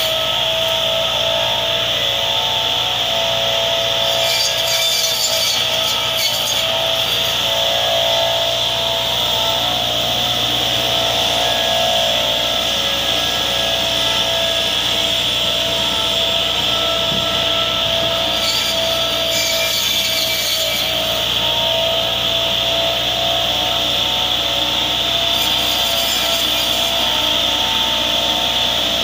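Massey Ferguson 385 diesel tractor running with its front-mounted hydraulic rotary disc cutter spinning, a steady mechanical drone with a high whine. Several times a brief rush of noise rises over it as the blades cut through leafy branches.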